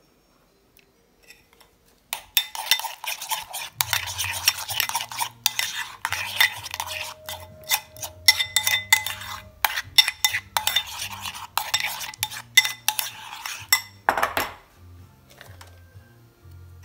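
Metal utensils clinking and scraping against pots and dishes in quick, busy strokes, starting about two seconds in and stopping about fourteen seconds in. Faint background music underneath.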